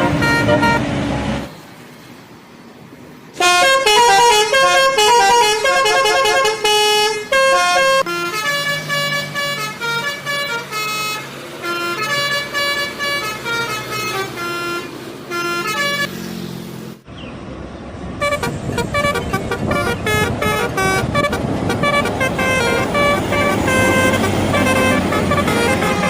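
Indonesian bus telolet horns, multi-tone horns, playing quick melodic tunes of stepped notes, several notes a second, in a run of short clips. There is a brief lull near the start, and in the last third the tunes sound over a steady rumble of engine and street noise.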